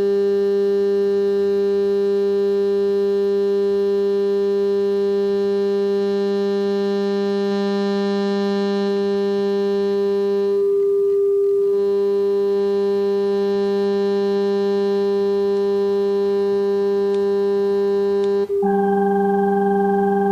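Steady electronic test tone from a tone generator played through a multi-effects pedal, holding one pitch with a lower, buzzier layer an octave below. The lower buzzy layer drops out for about a second halfway through, then returns, and the effect changes to a brighter, higher-pitched sound near the end.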